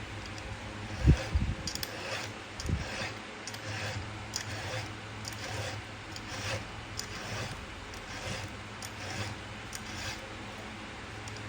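Chainsaw chain being sharpened by hand, with short, repeated rasping strokes roughly every half second. There is a thump about a second in and a low steady hum underneath.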